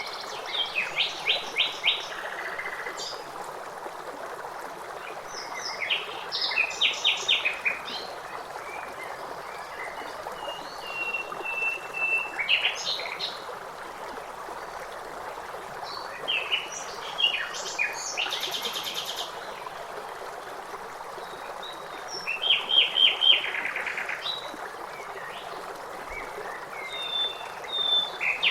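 Songbirds singing short phrases of rapid repeated notes, one every few seconds, over the steady rush of a stream.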